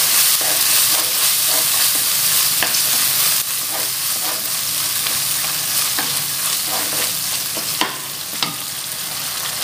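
Squid and prawns sizzling in sauce in a nonstick wok while a wooden spatula stirs and scrapes them around the pan, with scattered light clicks of the spatula. The sizzle eases a little about a third of the way in, and two sharper knocks of the spatula come near the end.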